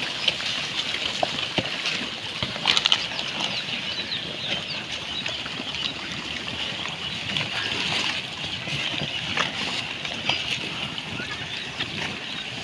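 A herd of pigs rooting and feeding through a rubbish heap: continuous chewing and snuffling mixed with the rustle and crackle of plastic litter, made up of many small clicks and a few sharper ticks.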